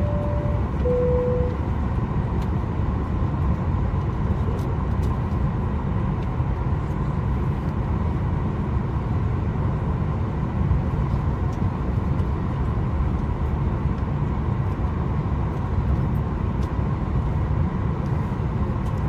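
Steady cabin rumble inside a Boeing 737 MAX 8 on the ground, with a faint constant hum. Right at the start, a two-note cabin chime sounds, high then low.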